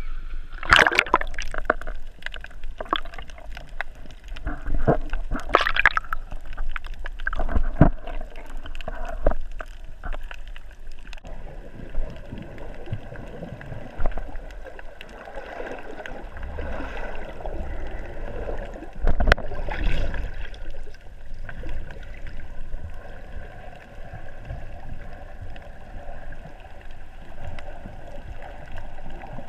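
Water splashing and sloshing at the surface around a swimming snorkeler in sharp strokes, giving way about eleven seconds in to muffled underwater gurgling and bubbling.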